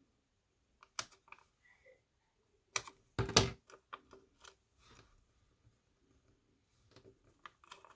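Card stock and paper being handled: scattered small clicks and taps, the loudest few about three seconds in.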